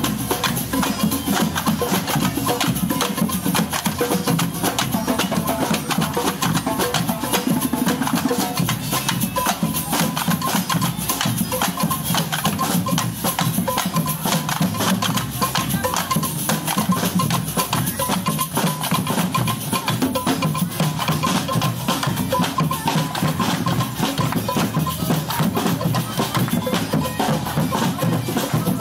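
Samba street percussion band playing a steady, fast batucada rhythm: sharp tamborim strikes over drums.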